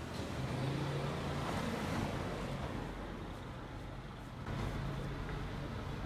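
Steady low hum of a vehicle engine idling, over a haze of street traffic noise, growing a little louder about four and a half seconds in.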